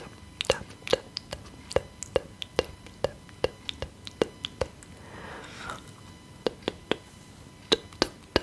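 Gum chewing close to the microphone: sharp, wet mouth clicks at a steady pace of about two a second, with a brief soft hiss about five seconds in.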